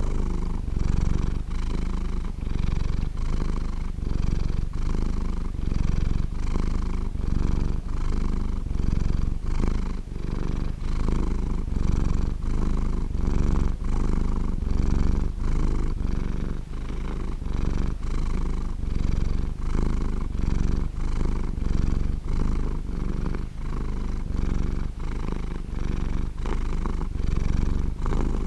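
Domestic cat purring steadily and continuously, the purr pulsing in an even rhythm of roughly two swells a second.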